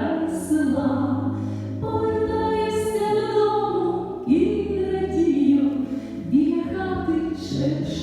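A woman singing a Ukrainian song over instrumental accompaniment, holding long notes with vibrato.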